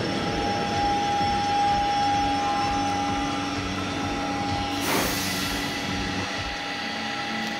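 Lyon Metro line C rack-railway train pulling into the platform and slowing to a stop, its electric drive humming and whining in a steady tone. A short burst of hissing air comes about five seconds in.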